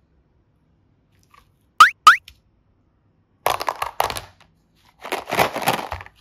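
Two quick rising chirps a third of a second apart, then two bursts of plastic clattering as flower-shaped plastic slime containers are shuffled and knocked together in a plastic basket.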